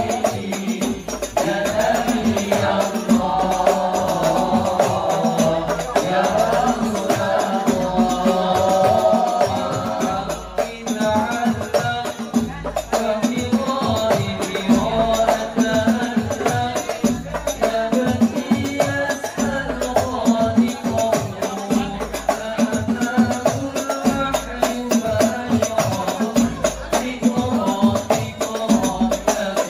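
Hadrah Al Banjari ensemble: young male vocalists singing Islamic sholawat into microphones over the busy, interlocking beat of terbang frame drums.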